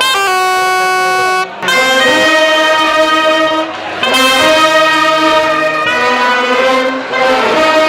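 A horn section of brass and saxophones playing a newly taught part in long held notes. One horn sounds a single note first, then after about a second and a half many horns come in together, moving to new notes every second or two.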